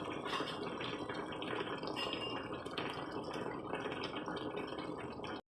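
A pot of stew bubbling on the stove, an even hiss with small irregular pops and drips. It cuts off abruptly near the end.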